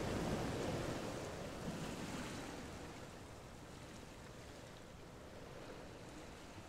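Marker rubbing on paper: a faint scratchy noise that fades over the first three seconds to a low steady hiss.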